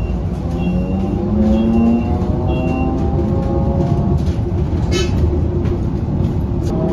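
Electric city bus's traction motor whining from inside the cabin, the whine rising steadily in pitch as the bus accelerates, over road rumble. Two short high beeps come about two seconds apart, and a sharp click with a brief ring sounds about five seconds in.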